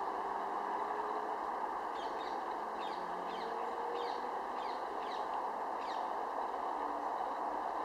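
Steady hum of distant road traffic. Over it, from about two seconds in and for about four seconds, a small bird gives a run of short, falling chirps, about two a second.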